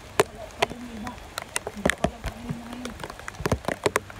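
Rain falling and dripping onto hard surfaces and containers: irregular sharp taps of drops, several a second.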